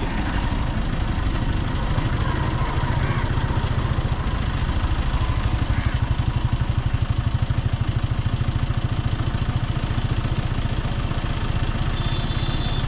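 A small engine idling with a steady, rapid chugging beat.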